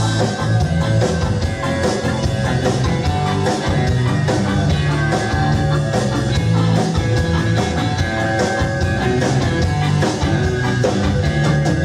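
Live rock band playing an instrumental passage with electric guitar, bass and drums. A steady bass line and regular drum hits run under the guitar, with no singing.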